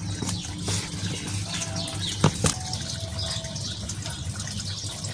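A feather cat toy on a string swishing and flapping as a kitten bats at it, over a steady low hum. Two sharp taps come about two seconds in.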